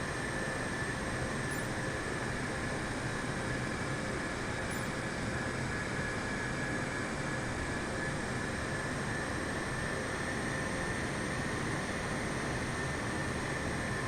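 Jet airliner engines running steadily: an even rushing noise at constant level, with a few faint steady tones over it.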